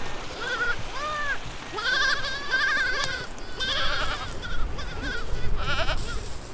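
A herd of Spanish goats bleating, with several calls overlapping and following one another, some of them long and wavering.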